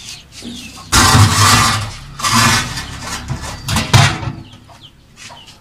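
Cloth covers being pulled away and a large metal plate lid scraped and lifted off a brick-lined pit oven, in several noisy scrapes with a sharp knock about four seconds in.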